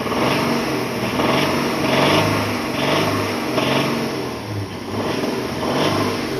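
Kia minivan's engine revved in repeated throttle blips, with a valve rattle that grows as it revs: the oil pressure is low and the engine is starved of oil.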